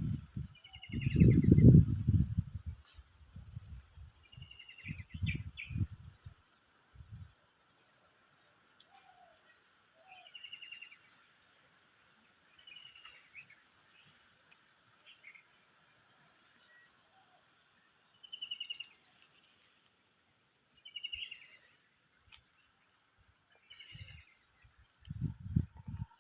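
A steady, high insect chorus with short bird chirps repeating every second or two. Loud low rumbles, like wind or handling on the microphone, come in the first few seconds and again near the end.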